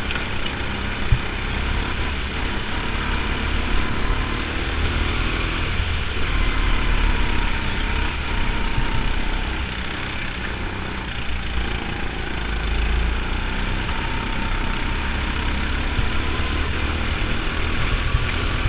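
Go-kart motor running steadily, heard from onboard the kart at racing speed, with other karts' motors around it; its pitch rises and falls slightly with speed through the corners.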